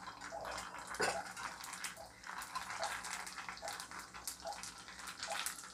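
Pani puri discs deep-frying in hot oil, sizzling and crackling steadily while a wire spider skimmer presses them under so they puff up. A louder click comes about a second in.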